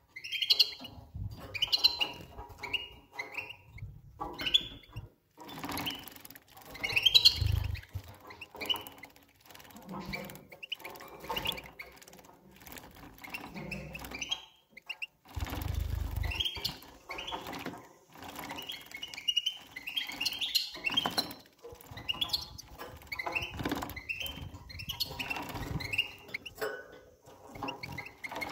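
Juvenile European goldfinch bathing in a shallow water dish: irregular bursts of splashing and wing-flapping in the water, with short high chirps among them.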